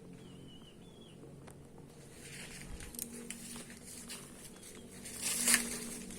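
Rustling and crackling of leaves and branches, with scattered snaps and a louder crackle about five and a half seconds in.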